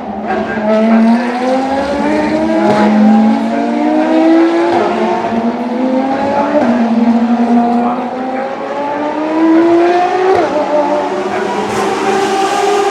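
Ferrari FXX K V12 track cars accelerating hard through the gears. The engine note climbs in each gear and drops back at the upshifts, with more than one car heard at once.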